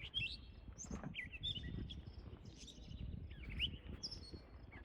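Songbirds chirping: a string of short, quick chirps and whistled notes, several a second, over a low outdoor rumble of wind.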